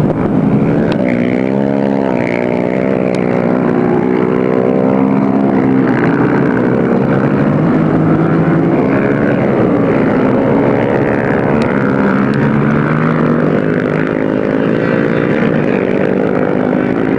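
Racing quad (ATV) engine running hard at high revs, its pitch dipping and climbing over and over with the throttle.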